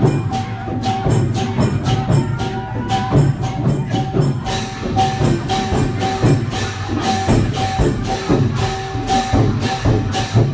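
Lively percussion music with a fast, steady beat of drums and jingling cymbals, a ringing metallic note struck in time with it.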